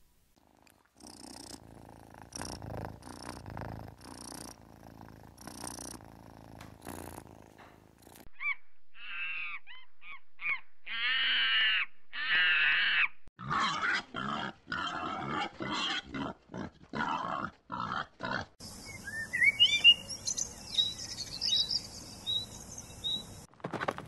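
A run of animal calls. Faint short grunts and clicks come first. From about a third of the way in, macaque monkeys give high, wavering screeches and short calls in quick succession. Near the end, high chirps follow.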